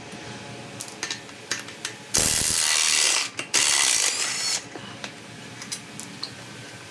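Cordless impact wrench hammering on the brake caliper bracket bolts of a Ford Super Duty Dana 60 steering knuckle, in two bursts of about a second each, the second starting just after the first stops. Light metal clicks and knocks follow as the loosened caliper is handled.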